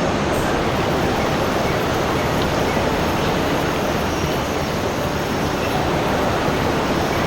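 Steady, unbroken rushing of water, an even noise with no separate splashes or pauses.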